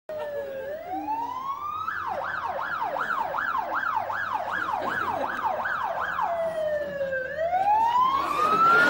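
Bedford ambulance's siren: a slow wail that switches about two seconds in to a fast yelp of about ten quick sweeps, then back to the slow wail about six seconds in. Near the end it grows louder, with the rush of the vehicle passing close.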